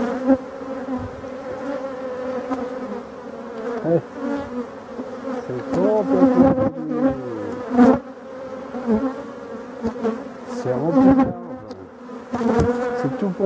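Honeybees humming loudly over an opened, crowded hive: a steady buzz, with single bees passing close, their pitch swooping up and down. A few sharp knocks as the wooden frames are handled.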